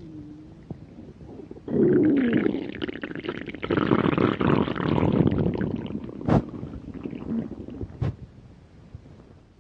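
Human stomach rumbling and gurgling: quiet at first, then a long, loud gurgle begins a little under two seconds in, with a short falling squeal near its start. It trails off toward the end, with a couple of sharp pops along the way.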